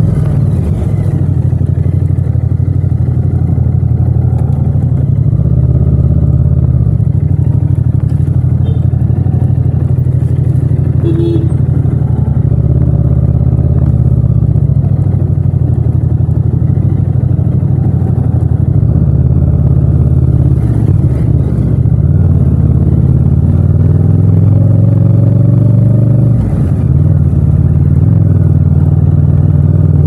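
Yamaha MT-07's 689 cc parallel-twin engine running steadily while riding slowly in traffic, with a brief dip in the engine sound near the end.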